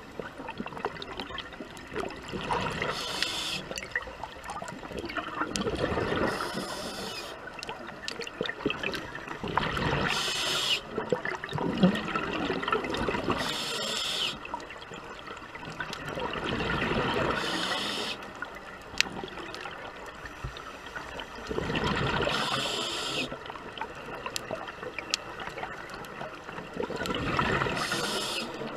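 Scuba diver's regulator breathing, heard underwater: exhaled air escapes as bubbling surges about every four seconds, seven in all, over a constant watery crackle.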